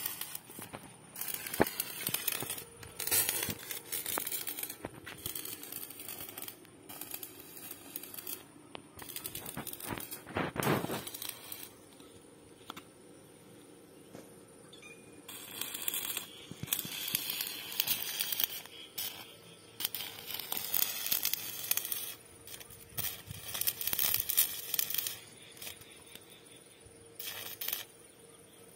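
Electric arc welding on steel water pipe: the arc crackles and sizzles in bursts of a few seconds, with short pauses between them.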